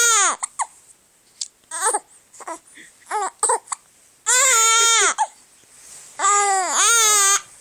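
Infant crying: a wail breaks off right at the start, then a few seconds of short broken sobs, then two long high-pitched wails about 4 and 6 seconds in.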